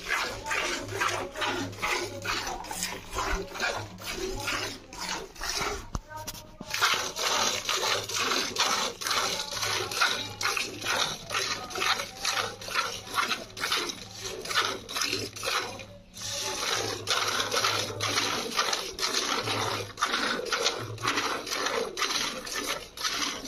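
Hand-milking a cow: jets of milk squirting into a steel milk bucket in a steady rhythm of about two to three squirts a second as the hands alternate, with a couple of short breaks.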